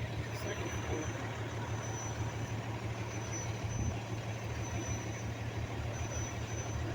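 Fire engine's diesel engine idling steadily, with a faint high beep repeating about every second and a half.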